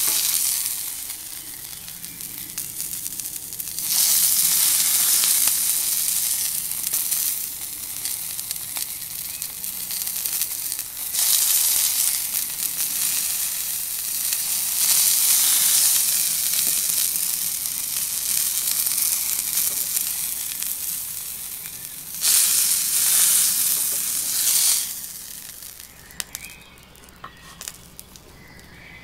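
Elk steak sizzling as it sears in a hot frying pan, the sizzle swelling loud several times. Near the end it dies down to quiet, with a few light clicks.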